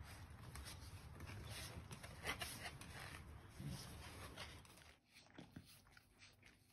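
Faint scratching and rustling of a dachshund's claws and body on a mesh lounger as the dog shifts and turns around, over a low steady hum. It drops quieter about five seconds in, leaving only a few faint ticks.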